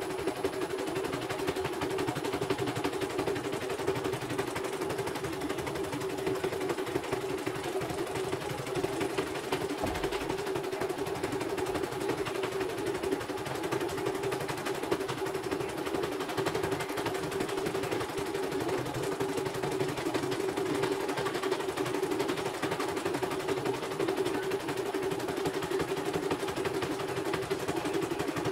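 CNY portable computerized embroidery machine stitching a design at full speed: a steady rapid needle clatter over a constant motor hum.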